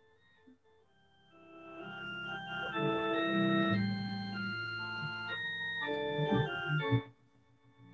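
Organ playing a slow hymn tune in held chords, coming in after about a second of near silence and breaking off briefly near the end.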